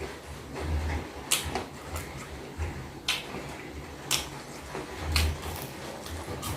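Close-up eating sounds: dull chewing pulses with sharp clicks every second or so, from teeth, crunchy food or a utensil.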